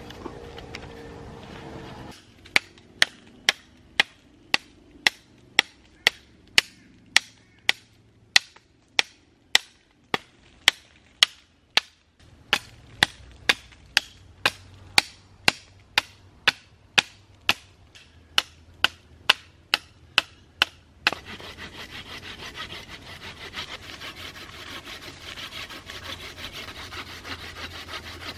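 Chopping into the base of a hardwood sapling with a blade, about two sharp chops a second. About three-quarters of the way through the chopping stops and a hand saw takes over, sawing steadily through the wood.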